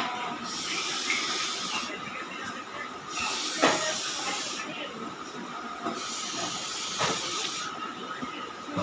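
Air hissing through a blow-air spray pen in three long blows of about a second and a half each, spraying ink onto paper.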